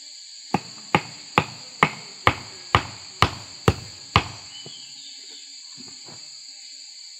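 A hatchet striking the top of a forked wooden stake to drive it into the ground: nine sharp knocks about two a second, then a few faint taps. A steady high insect drone runs underneath.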